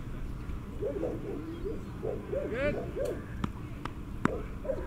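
Outdoor ambience of a low wind rumble with faint distant voices, broken by three sharp knocks in the second half.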